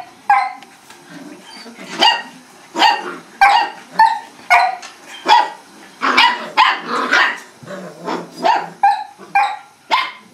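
A small puppy barking in a string of short, high-pitched yaps, roughly one to two a second.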